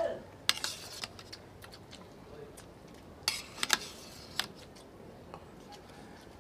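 Metal spoon and fork clinking and scraping against dinner plates while eating: a few sharp clicks about half a second in, then another group of clicks a little past the middle.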